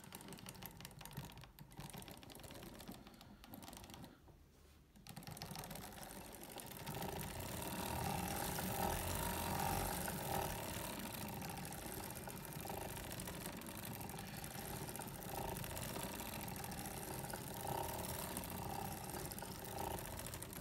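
Foster Victoria vintage circular sock machine being hand-cranked, knitting the cuff's one-by-one ribbing with the ribber fitted: the needles and cams make a fast, even mechanical clicking as the yarn carrier goes round. It is quieter and more scattered for the first five seconds or so, then runs steadily and somewhat louder from about seven seconds in.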